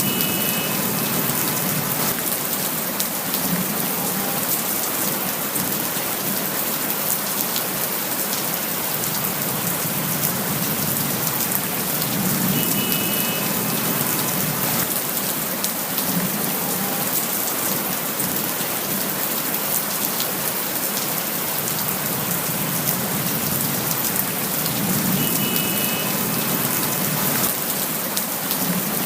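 Steady rain falling, an even hiss dotted with many separate drop hits. A short faint high tone comes three times, about twelve and a half seconds apart, as the recording repeats.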